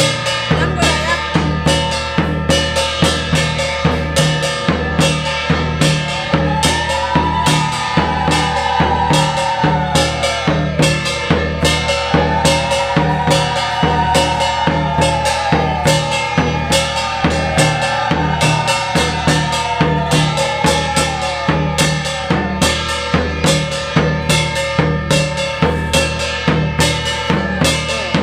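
Devotional percussion of a Matua Harisabha: drums beaten in a fast, steady rhythm, about three to four strikes a second, over a constant metallic ringing. In the middle, a high tone rises and falls in swoops several times.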